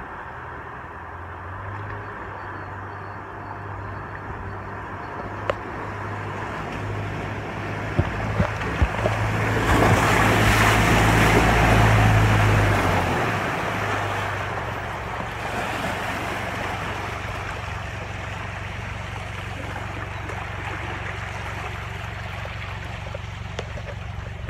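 A four-wheel-drive SUV driving slowly through a flooded river ford: its engine hum and the splashing of water from its wheels build as it approaches, are loudest as it passes close by about halfway through, then fade, leaving the steady rush of water over the ford.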